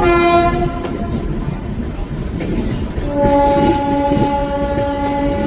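Train horn sounding twice: a short blast, then a longer, slightly lower one about three seconds in. Underneath runs the steady rumble and clatter of a moving train.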